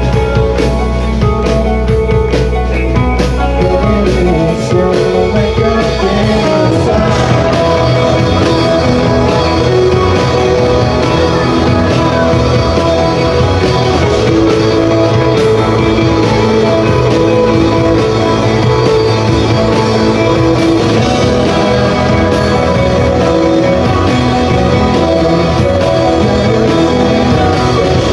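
Rock band playing through a PA: electric guitar, bass and drums, with singing. A low bass note is held for the first few seconds before the band moves into a busier passage.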